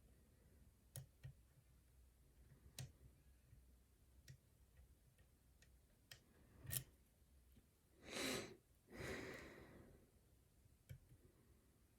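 Faint, scattered clicks of a lock pick and tension wrench working the pins of a challenge padlock, with two short breaths or sighs about two-thirds of the way through.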